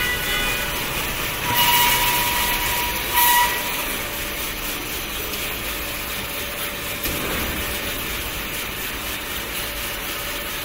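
Automatic band saw cutting machine for maxi-roll paper logs, with its conveyor, running with a steady mechanical noise. Two short high whines with a hiss come through it, about one and a half and three seconds in.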